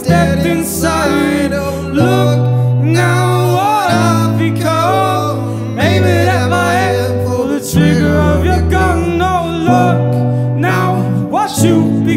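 Live band music: a male vocalist singing a line that glides up and down in pitch, over electric guitar and low sustained bass notes that change about every two seconds.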